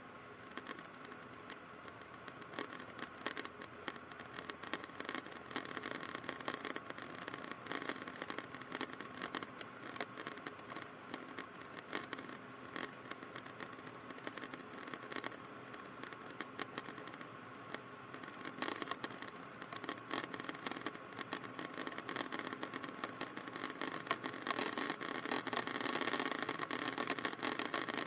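Cessna 152's four-cylinder Lycoming O-235 engine droning steadily as heard through the cockpit intercom, with frequent crackling clicks over it. It grows louder over the last few seconds.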